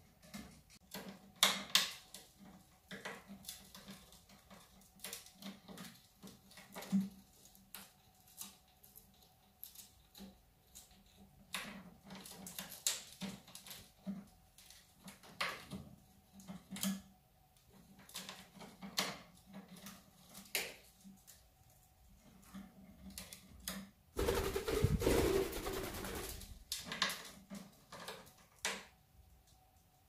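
Quaker parakeets pecking, chewing and clambering on a wooden play stand and its toys: scattered, irregular clicks, taps and scratches, with one louder noisy burst of about two seconds near the end.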